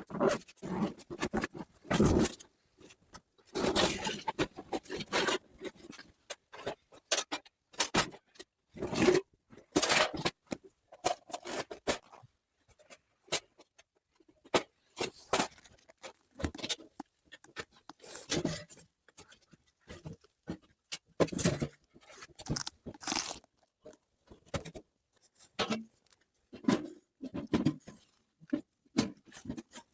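Irregular crunches, scrapes and knocks of hands working with materials, several a second with short pauses, a few longer scraping stretches among them.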